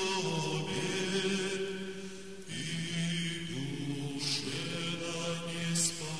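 Slow chant by low male voices, holding long notes that shift to new pitches about two and a half seconds in and again a second later.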